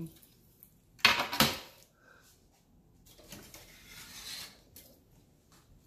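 Metal freeze-dryer tray clanking twice against the shelf rack about a second in, then scraping as it slides along the shelf a couple of seconds later, with a few small clicks.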